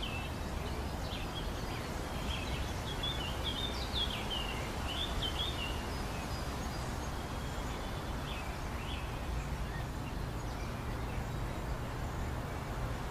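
Outdoor ambience: small birds chirping in quick short calls over a steady low background rumble, the calls growing sparser after about six seconds.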